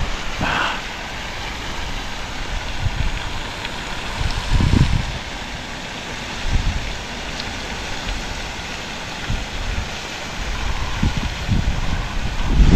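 Wind buffeting a GoPro's microphone: a steady hiss with uneven low rumbling gusts, the strongest about five seconds in and near the end.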